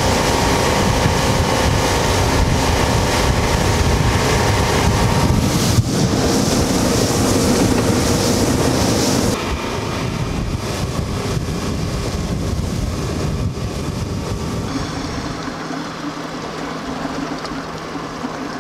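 Fishing boat's outboard motor running under way: a steady engine drone mixed with wind buffeting the microphone and water rushing past the hull. About halfway through the sound drops abruptly to a quieter run, and near the end a steady low engine hum is left under the water noise.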